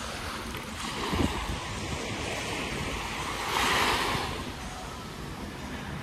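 Small waves washing onto a sandy shore, with one wave swelling up and washing in about three and a half seconds in. Wind rumbles on the microphone underneath.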